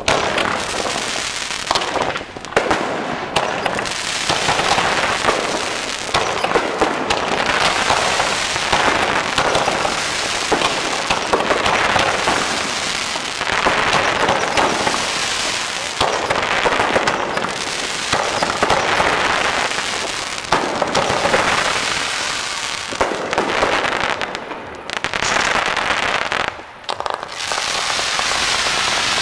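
Fireworks display: a dense, continuous crackle of many aerial shells and small pops, easing off briefly a couple of times near the end.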